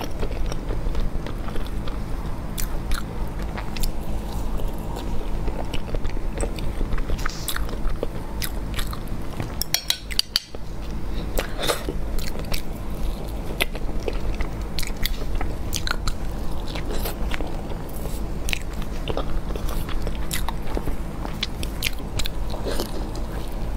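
Close-miked biting and chewing of fried fish and a steamed bun, with irregular sharp crunches all through. A steady low hum runs underneath, and there is a brief break about ten seconds in.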